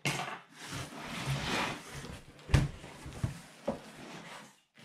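A large cardboard shipping box being opened by hand: about two seconds of cardboard rustling and scraping, then a few knocks of the flaps, the loudest about two and a half seconds in.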